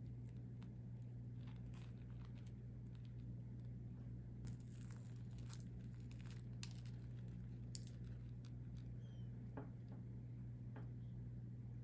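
Crispy fried breadcrumb crust of a 7-Eleven curry bread crackling and crunching in scattered small clicks as hands tear the bun apart, over a low steady hum.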